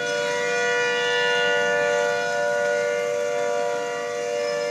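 Two outdoor tornado warning sirens sounding together, each holding a steady pitch.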